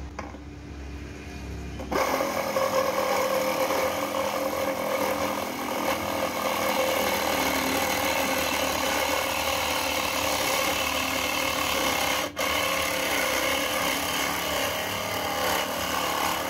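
Cordless battery saw with a reciprocating blade cutting through a galvanized 2x4 hollow steel tube. After a quieter start the sawing noise turns loud about two seconds in and runs on steadily, with a brief break about twelve seconds in.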